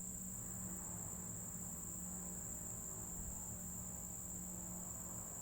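Steady chorus of insects, a continuous high-pitched trill, with a faint low hum underneath.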